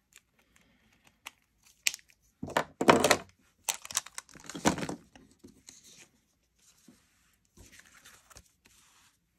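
Paper being handled: a few sharp clicks, then two loud rough bursts of tearing or rustling paper about two and a half and four seconds in, followed by softer rustling.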